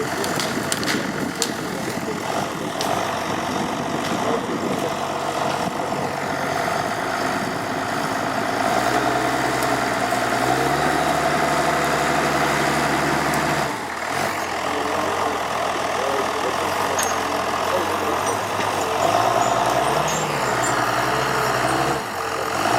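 Diesel engine of a Timberjack log skidder running and revving up and down under load, with a short dip about fourteen seconds in.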